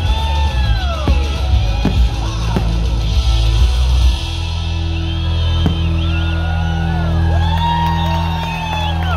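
Music of a fireworks show over a crowd whooping and cheering. Sharp firework bursts crackle and bang under the music for the first four seconds or so, then stop, leaving held music chords under the whoops.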